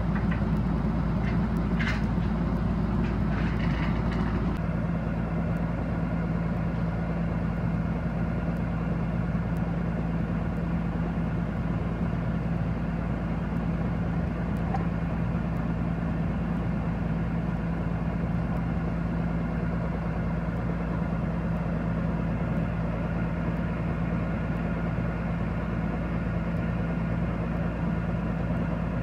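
Heavy diesel engine idling steadily. A few short metallic clinks sound in the first few seconds.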